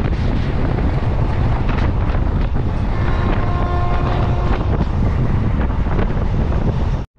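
Wind buffeting the microphone over the steady rumble of a DEMU train running along the line. A faint steady pitched tone sounds for about a second and a half midway, and the sound cuts off abruptly near the end.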